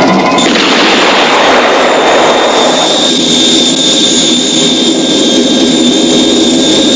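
Jet-turbine-style rushing whoosh with a steady high whine, the KITT "super pursuit mode" sound effect played from the replica car's sound system. It swells in about half a second in and holds steady and loud.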